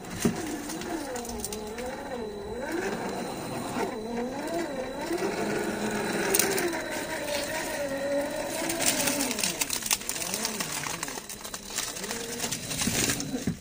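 Electric RC rock crawler's 550 brushed motor and gearbox whining, the pitch rising and falling as the throttle is worked.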